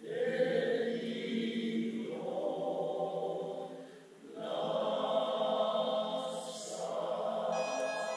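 Choir singing two sustained phrases, with a short breath-pause between them about four seconds in.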